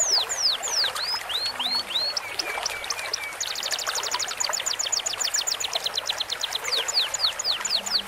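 Layered songbird recordings of canary, cucak cungkok leafbird and lovebird song: rapid trills of repeated notes alternate with downward-sweeping whistles, a few rising notes and short chirps. A steady running-stream sound lies underneath. A dense fast trill starts about three and a half seconds in.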